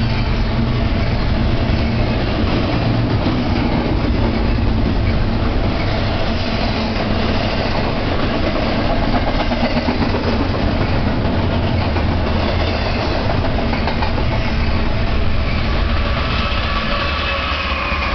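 A double-stack container freight train rolling steadily past, its wheels and cars rumbling and clattering on the rails. Near the end the diesel locomotive at the rear of the train comes alongside, adding the steady drone of its engine over the rail noise.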